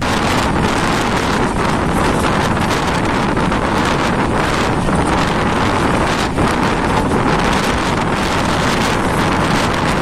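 Strong wind buffeting the microphone, held out of a moving passenger train at speed. Under it is the steady running noise of the coaches on the track.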